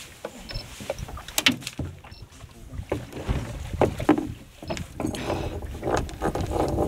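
Water sloshing against a small boat's hull, with a low rumble of wind on the microphone and a few sharp knocks as a freshly caught cod is handled and lifted in at the gunwale.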